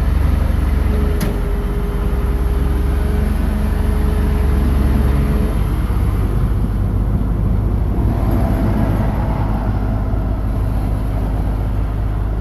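Engine of a truck or excavator running steadily with a deep, loud rumble, with a single sharp click about a second in.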